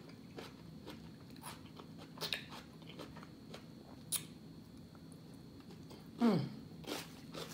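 A person chewing and biting food, with scattered wet mouth clicks. About six seconds in comes a brief hummed vocal sound that falls in pitch.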